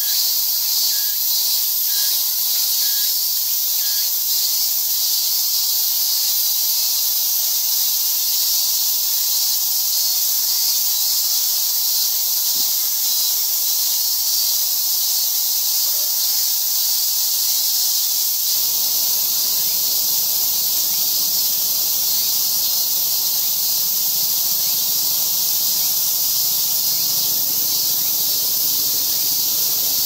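Steady, high-pitched hiss of cicadas singing in chorus. A low rumble comes in about two-thirds of the way through.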